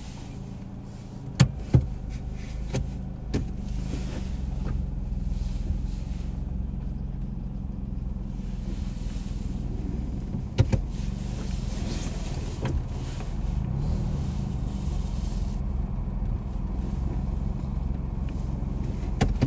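Car engine running steadily just after being started, heard from inside the cabin, with a few sharp clicks and knocks, the two loudest about a second and a half in and another about ten seconds in.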